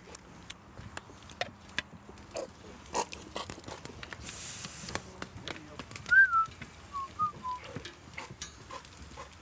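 Scattered clicks and clinks of tongs, plates and cutlery around a barbecue grill and serving table. About six seconds in, a short whistle-like call of a few notes drops in pitch and is the loudest sound.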